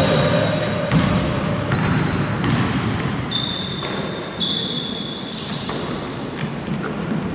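Basketball shoes squeaking on a hardwood court, many short high squeals in quick succession, thickest in the middle, over the thud of the ball bouncing.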